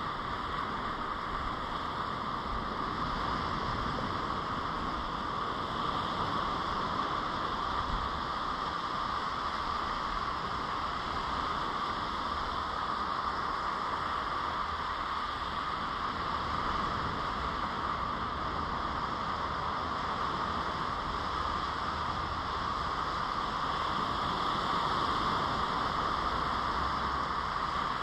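A steady, even rushing hiss with no swells, knocks or other distinct events.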